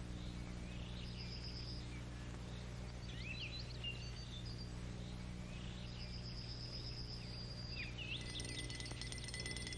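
Birds chirping and twittering in short whistles over a steady low hum. About eight seconds in, a bell starts ringing rapidly and keeps on.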